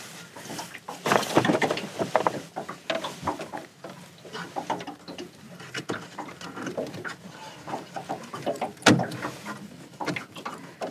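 Small clicks and rattles of a hard-bodied prawn lure and its hooks being handled and attached to fishing line, with one sharper click about nine seconds in.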